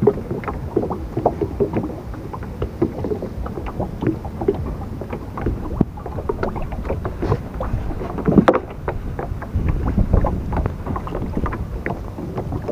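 Wind rumbling on the microphone, with irregular small knocks and splashes of water throughout and one sharper knock past the middle.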